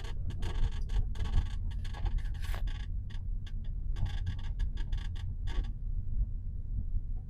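Rear seat of a BMW F46 218i Gran Tourer squeaking in short, irregular bursts as the car goes over bumps, over a steady low road rumble inside the cabin; the squeaks thin out in the last couple of seconds. The owner puts the squeak down most likely to the seat's rails.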